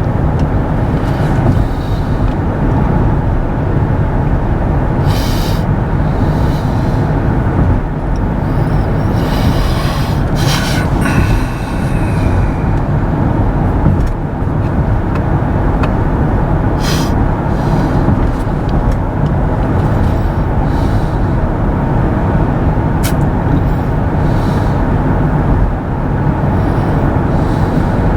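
Steady tyre and road noise inside the cabin of a Kia EV6 electric car under way, with no engine sound. A few brief hissing swells rise over it, the longest about ten seconds in.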